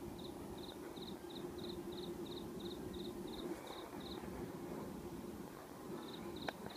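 Insect chirping, about three quick chirps a second, that breaks off for a couple of seconds and starts again, over a faint steady hum. Near the end a single sharp firework bang goes off.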